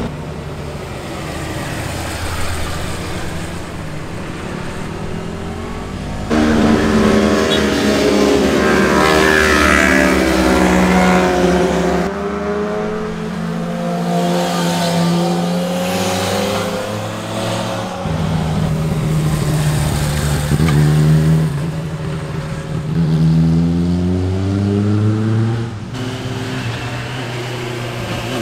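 Sport motorcycle engines revving hard and passing one after another, their pitch climbing through the gears and falling away as they go by. The sound changes abruptly several times where separate passes are cut together.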